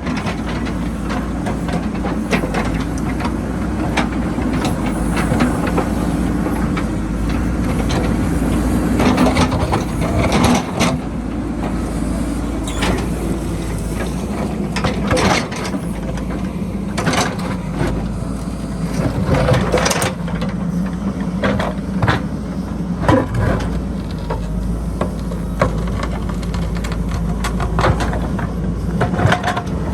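JCB backhoe loader's diesel engine running steadily under load, its note shifting a few times, with repeated clanks and knocks as the machine works the dirt.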